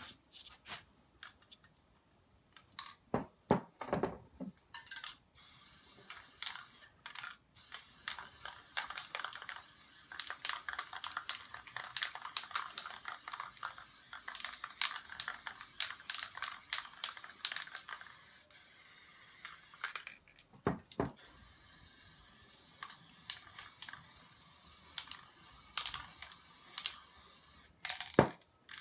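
Aerosol spray paint can hissing in long sprays, with fast crackling clicks through the hiss and a few short breaks. A few knocks and clicks of handling come before the spraying starts.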